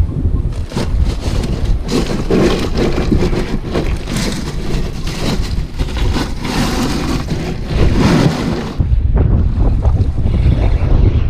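A hand rummaging through ice, bottles and zip-top bags in a plastic Igloo cooler, with dense irregular clattering and crinkling, while wind buffets the microphone. About nine seconds in it cuts to steady wind noise and small surf at the shoreline.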